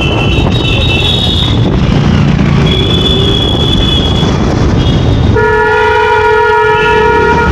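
The steady rumble of riding a scooter in city traffic, with short high-pitched horn toots in the first few seconds. A vehicle horn sounds loudly for about two seconds near the end.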